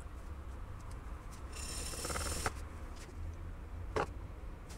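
Zhiguli alternator carbon brush being filed down by hand to fit the Aveo's Valeo brush holder: a scraping stroke around the middle, with a few light clicks.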